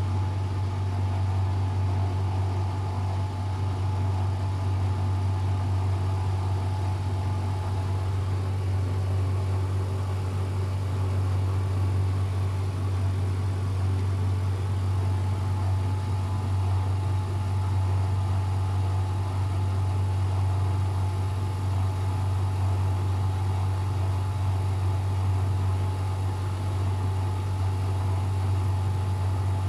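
Luxor WM 1042 washing machine on its spin cycle, the drum spinning at a steady speed: a steady low hum with a faint thin whine above it.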